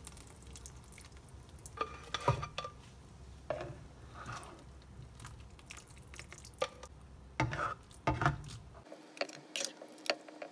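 Slotted spatula scraping and knocking against a wok as fried tomatoes and chilies are scooped out. The clicks and scrapes are scattered, with a cluster of louder knocks shortly before the end.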